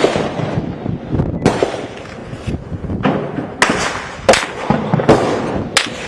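Gunfire in a street battle: about a dozen irregularly spaced gunshots, each cracking sharply and echoing, sometimes two in quick succession.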